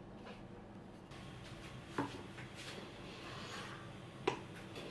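Hand plane being worked along a wooden board: a hissing cutting stroke in the middle, with two sharp wooden knocks about two seconds apart.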